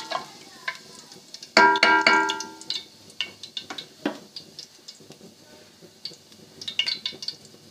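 Metal spoon stirring fennel seeds and cloves in hot ghee in a metal cooking pot, giving scattered light clinks and ticks. About a second and a half in, the spoon strikes the pot with a loud ringing clang that dies away over about a second.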